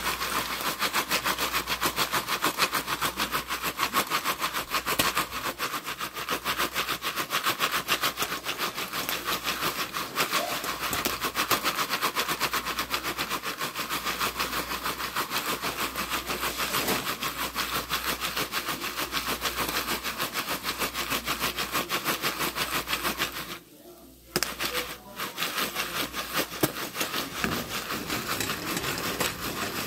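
Jiffy Pop popcorn popping fast inside its foil pan as the pan is shaken on an electric coil burner: a dense, continuous crackle of pops and rattling that stops for about a second roughly 24 s in, then goes on.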